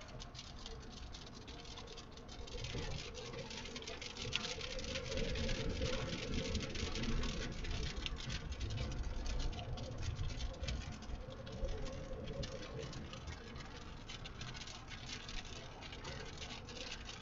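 Rain pattering rapidly and steadily on the car's roof and windshield while driving, over the low rumble of road noise.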